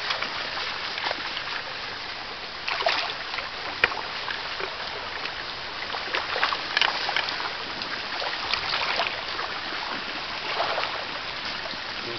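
Shallow salmon stream running steadily over its bed, with a few splashes of something wading through the water every couple of seconds and one sharp click about four seconds in.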